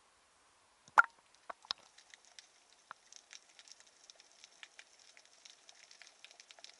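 Action camera dipping from the sea surface under water, with a sharp splash about a second in, then underwater sound: a faint, irregular crackle of small clicks and ticks.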